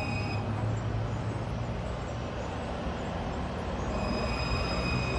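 C-class tram running past at close range: a steady rumble of wheels on the rails with a low hum. A high steady whine drops out about half a second in and returns near the end.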